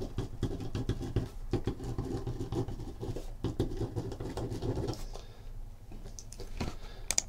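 Faint, irregular ticks and scratching from small objects being handled, over a low steady hum that fades about five seconds in.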